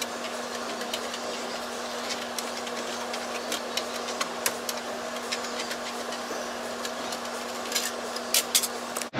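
Tin snips cutting a circle out of a copper sheet: a run of short, sharp metallic snips and clicks, coming quicker near the end, over a steady background hum.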